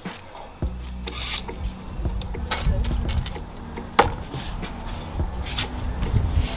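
Cooking handling sounds: a knife scraping and tapping chopped onions off its blade into an aluminium pot, then scattered clicks and knocks, the sharpest about four seconds in, over a low steady rumble.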